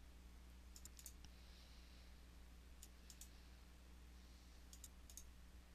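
Near silence: a faint low electrical hum with a few faint short clicks in small clusters about one, three and five seconds in.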